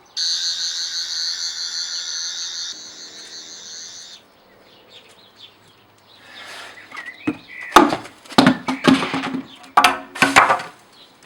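A high warbling electronic whine for about four seconds, then a run of loud knocks and clatter.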